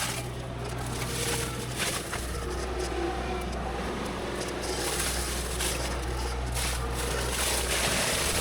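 Diesel engine of heavy land-clearing machinery running steadily, with scattered cracks and snaps of brush and wood being broken.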